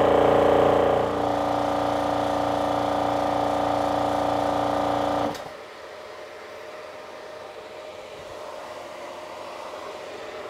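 Air Venturi 4500 psi electric high-pressure air compressor running steadily while filling a transfer bottle, then cutting off suddenly about five seconds in. A much quieter steady hum from its cooling system goes on after.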